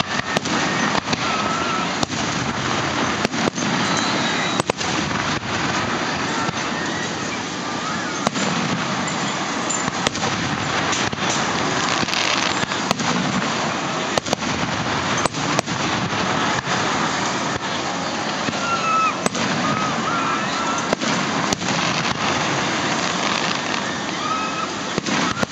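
Aerial fireworks going off, with sharp bangs and cracks at irregular intervals over a steady background murmur of a crowd.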